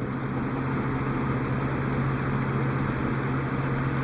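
Steady low mechanical hum: a constant drone with an even hiss over it, unchanging throughout.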